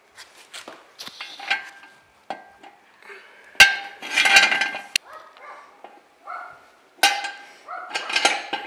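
Metal jack stands clanking as they are handled and set down on a concrete floor: a run of sharp metallic knocks that ring on briefly, the loudest about three and a half seconds in and again near the end.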